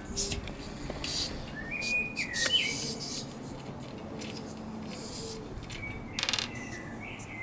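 Air hissing in short, irregular spurts from a tubeless mountain-bike tyre's opened valve as the tyre deflates. Birds chirp briefly about two seconds in and again about six seconds in.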